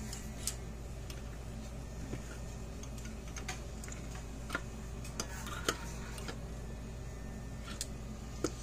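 Needle-nose pliers tapping and clicking against metal terminal brackets and a plastic electric-fence-charger case, in scattered light ticks with a few seconds between some, ending in a louder clatter.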